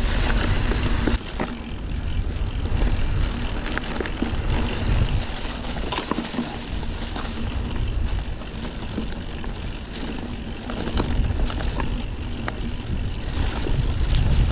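Wind buffeting a ride-mounted camera's microphone while cycling, with rolling tyre and road noise and a few sharp clicks and rattles. The wind rumble eases a little about a second in and builds again near the end.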